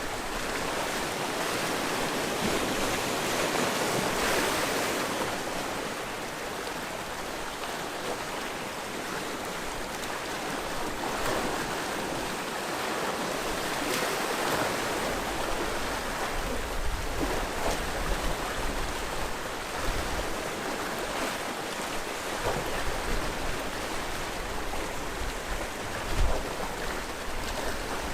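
Sea waves washing onto the shore in steady surf, swelling louder about 4 and 14 seconds in. In the second half, low rumbling from wind on the microphone comes and goes, with one sharp bump near the end.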